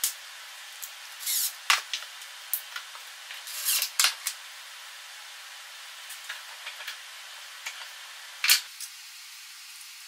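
Plywood pieces, a quick-release bar clamp and a cordless impact driver being handled and set down on a wooden workbench. A series of sharp clicks and knocks with a couple of short scrapes, over a steady hiss.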